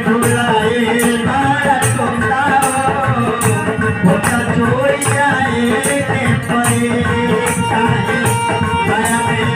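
Live Bhojpuri devotional bhajan music: a harmonium carrying the melody over a dholak keeping a steady beat of about two strokes a second.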